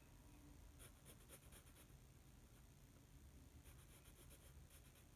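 Faint scratching of a graphite pencil on paper in short, quick strokes. There are two runs of strokes, one about a second in and another near the end, as hair outlines are drawn.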